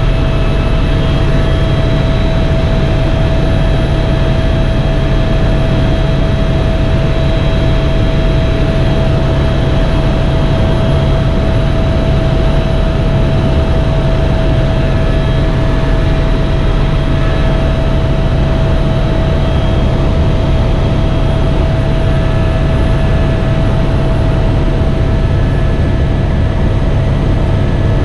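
Helicopter engine and rotor running steadily in flight: a loud, constant drone with a low rumble and a steady whine above it.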